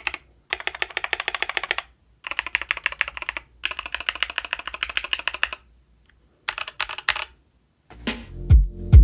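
Fast typing in bursts on an ID80 mechanical keyboard with lubed and filmed NovelKeys Kailh Cream linear switches and high-profile MT3 keycaps, four runs of rapid keystrokes with short pauses between them. Music comes in near the end.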